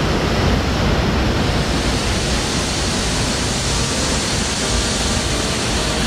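Waterfall plunging into a rock pool close by: a loud, steady rush of falling water.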